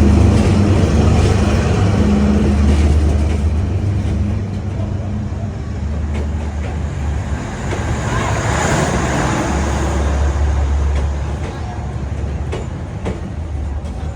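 Diesel train passing along the street-side track: a loud, steady low rumble of the locomotive and wagons that eases slightly in the second half.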